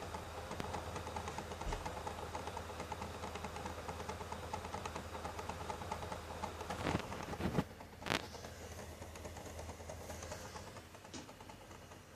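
PlayStation 4 disc drive making a fast, steady clicking rattle over a low hum, the abnormal noise of a faulty drive. A few louder clicks come about seven to eight seconds in, after which the noise drops and thins out.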